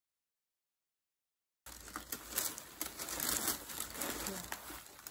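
Dead silence for about the first second and a half, then rustling and crinkling of a satin dust bag and tissue paper being handled and lifted out of a gift box.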